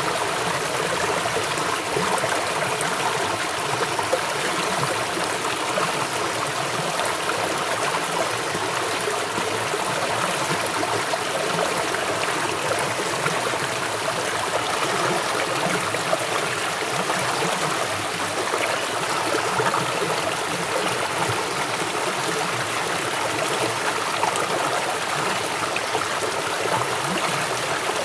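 River water flowing fast over rocks, a steady rushing and gurgling without letup.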